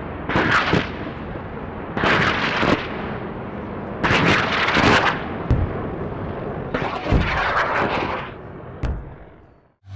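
Cinematic intro sound effects: four loud impact hits about two seconds apart, each with a long echoing tail, then a short click and a fade almost to silence near the end.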